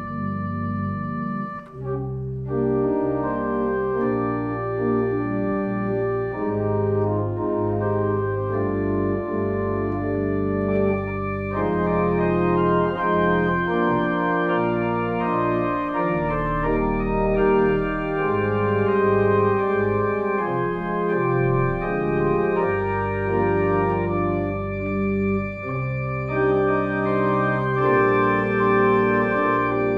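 Organ playing slow, held chords over a bass line, with a short break just under two seconds in.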